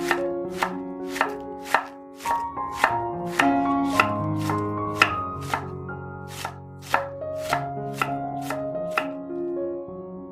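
Knife chopping food on a cutting board in even strokes, about two a second, stopping shortly before the end. Soft background piano music plays underneath.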